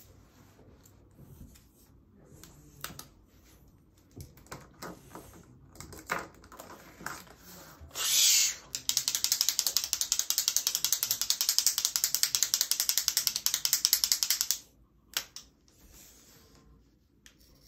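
Twist-up colouring stick being twisted, its mechanism clicking rapidly and evenly like a ratchet for about six seconds. Before it, light scratching of colouring strokes on paper and a short louder burst just before the clicking starts.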